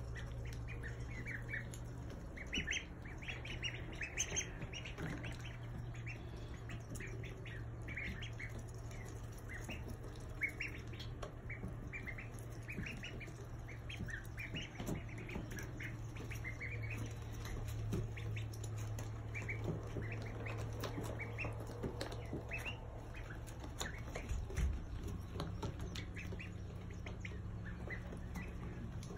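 Domestic ducklings peeping: many short, high peeps, often in quick runs, over a steady low hum.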